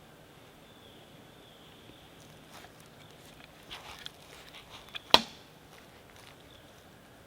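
A few faint clicks and rustles of handling, then one sudden sharp crack about five seconds in, by far the loudest thing, with a brief ring after it.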